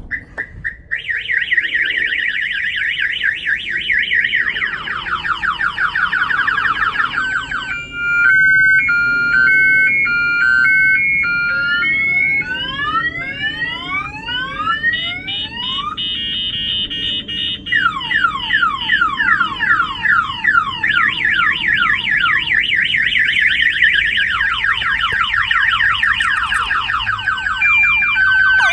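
Excalibur 1670 aftermarket alarm siren sounding loudly, set off by a bang on the vehicle's glass. It cycles through its tones every few seconds: a fast warble, a stepped high-low beeping, rising whoops, then falling sweeps and back to the warble.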